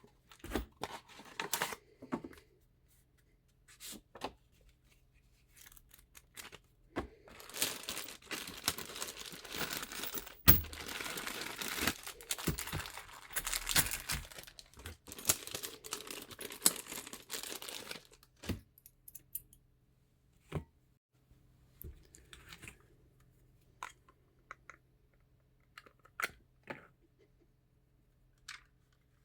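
Packaging being crinkled and torn: a dense stretch of crackling and tearing in the middle, with scattered clicks and taps before and after, and one sharp click in the middle.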